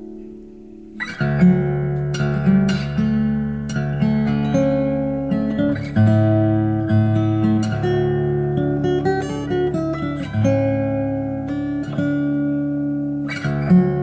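Background acoustic guitar music: a held chord dies away, then picked notes and chords start about a second in and carry on.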